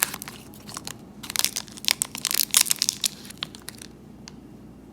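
Foil wrappers of Godiva Masterpieces chocolates crinkling and tearing as they are unwrapped, a quick run of crackles that stops about four seconds in.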